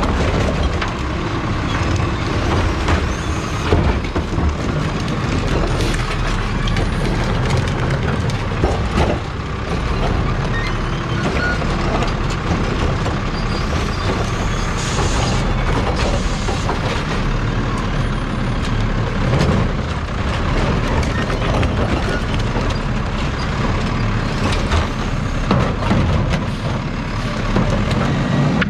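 Automated side-loader garbage truck running as its hydraulic arm lifts and tips wheeled trash carts into the hopper, with knocks and clatter from the carts and a short hiss of air about halfway through.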